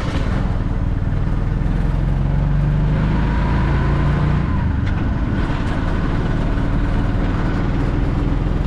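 Auto-rickshaw (tuk-tuk) engine running on the road with wind and road noise; the engine note rises for a couple of seconds partway through as it speeds up.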